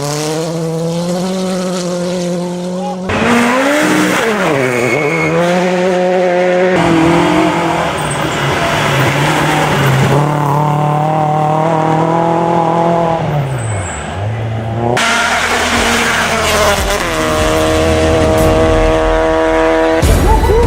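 Rally cars driven flat out, engines revving high through gear changes, with the pitch sweeping up and dropping sharply as the driver lifts off about four and fourteen seconds in. The sound comes as several back-to-back takes that cut in abruptly.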